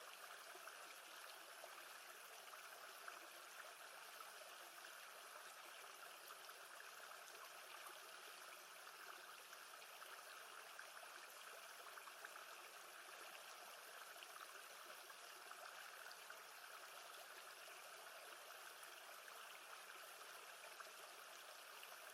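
Faint, steady sound of gently moving lake water: an even watery hiss with a fine trickling texture and no distinct splashes.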